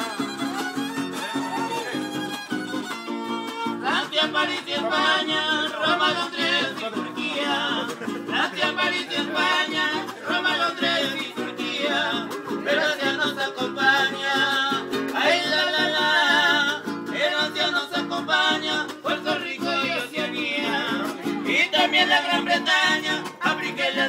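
Huapango music from a string trio: a violin leads over strummed guitars, and singing joins about four seconds in.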